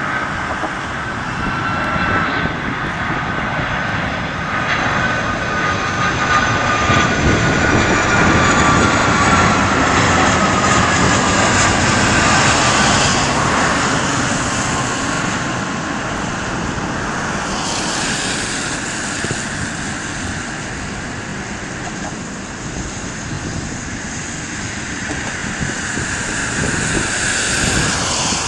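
Boeing 757-300 jet airliner passing: its turbofan engines roar steadily, and a whine falls slowly in pitch during the first dozen seconds. The roar swells again later on.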